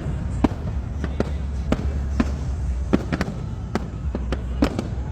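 Fireworks going off: a rapid string of sharp bangs and cracks, about two a second, over a steady low rumble.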